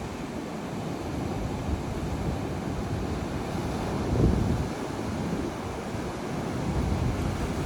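Sea surf washing on a beach, with wind rumbling on the microphone; the sound swells briefly about four seconds in.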